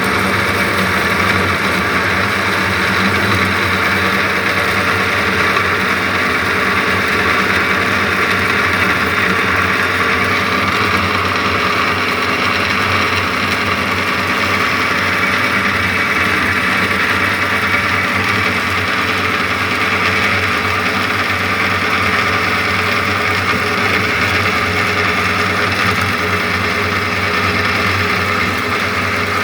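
DoAll bandsaw running at a steady speed with an even machine hum.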